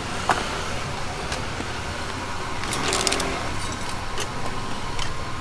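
Steady background din of a busy street market, with light metallic clicks of serving tongs: one just after the start and a quick run of them about three seconds in.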